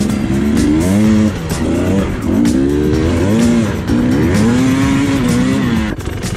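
Dirt bike engine revving up and falling back in three long swells, with background music over it.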